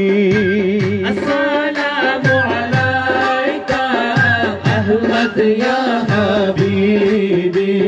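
Islamic devotional song over loudspeakers: a wavering melodic line held over steady hand-drum beats, about two a second.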